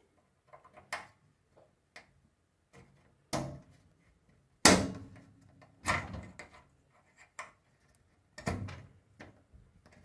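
Tumble dryer drum-support bearing pads being pushed onto the lugs of the dryer's sheet-metal front frame by hand: a series of separate clicks and knocks, the loudest a little before halfway, as the pads snap into place.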